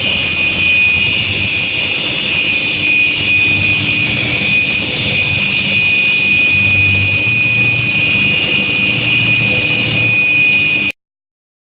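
Induction preheating furnace running, a steady high-pitched whine over a noisy hum, which cuts off suddenly near the end.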